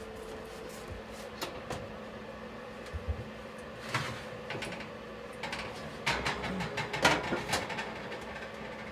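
Knocks and clatter of a kitchen oven being worked: the oven door opening and the metal rack and bread pan being handled as a baked loaf is taken out, busiest from about six to seven and a half seconds in, over a low steady hum.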